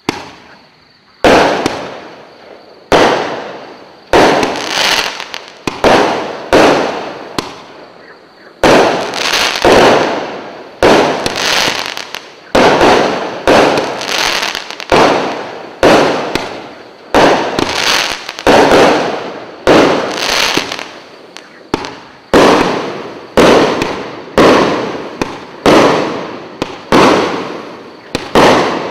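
Bugano "Orient" 54-shot firework battery firing, about one shot a second. Each shot is a sharp bang that dies away over about a second.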